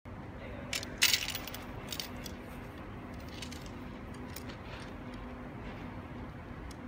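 A few sharp clinks and clicks, the loudest about a second in, over a steady low hum.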